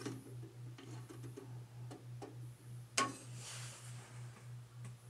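Toaster oven timer ticking steadily, about five ticks a second, over a low hum, with one sharp click about three seconds in.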